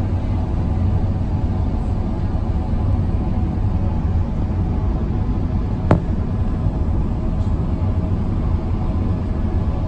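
Steady jet airliner cabin noise: a deep engine and airflow rumble with faint steady tones over it. A single sharp click about six seconds in.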